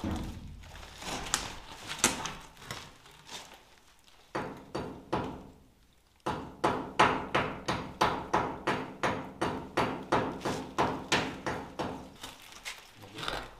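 Hammering: a few scattered knocks, then about halfway through a steady run of quick blows, about three a second.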